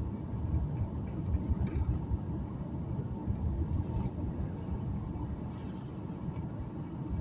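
Car driving, heard from inside: a steady low rumble of engine and road noise.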